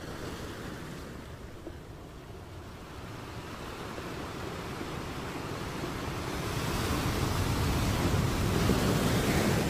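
Ocean surf breaking and washing over rocks: a steady rushing noise that grows louder over the last few seconds.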